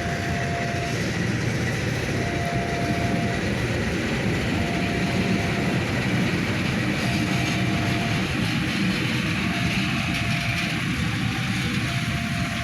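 Taksaka express passenger train passing close by: a loud, steady rumble of wheels on rails. A faint tone repeats about every two to three seconds in the background.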